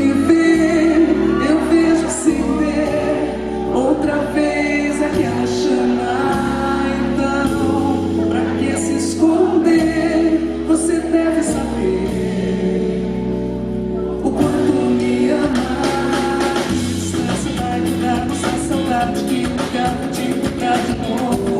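Live concert music: a song sung over band accompaniment. About two-thirds of the way in, a brighter, more rhythmic percussion comes in.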